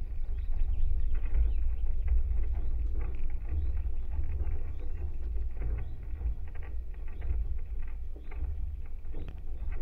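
A wooden may pole and its tensioned wires heard through contact microphones: a steady deep rumble of vibration with irregular small creaks and ticks several times a second.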